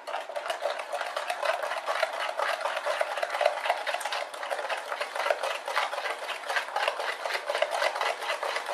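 Spoon beating an egg into thick chocolate mixture in a glass bowl: fast, steady scraping and clicking of the spoon against the bowl, several strokes a second.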